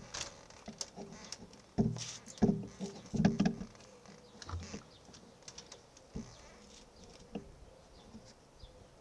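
Handling noise from hands working a motorcycle's handlebars and controls: irregular light clicks and taps, with a cluster of heavier knocks about two to three and a half seconds in.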